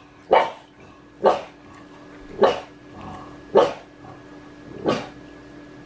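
A small dog barking five times in a row, sharp single barks about a second apart.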